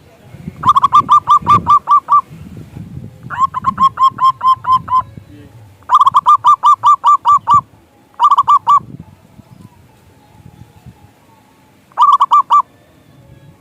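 Zebra dove (perkutut) singing: bursts of quick, evenly repeated notes, five bursts in all with short pauses between, the last two shorter.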